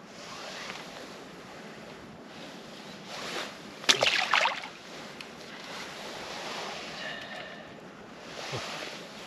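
A splash in the pond about four seconds in: a sharp smack on the water followed by half a second of spattering, over a faint steady outdoor background.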